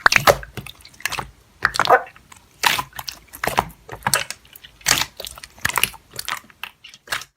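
Slime being squeezed and pressed by hand, giving wet squishing and clicking sounds in irregular bursts, about one or two a second.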